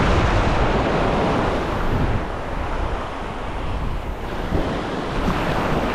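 Surf breaking and washing up the beach at the water's edge, with wind buffeting the microphone. It is loudest in the first two seconds, as a wave breaks close by, then settles a little lower.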